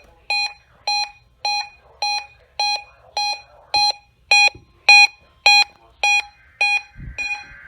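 Weather radio receiver's alert beeping steadily, about two short beeps a second, set off by a weekly test. A faint raspy tone comes in under the last few beeps.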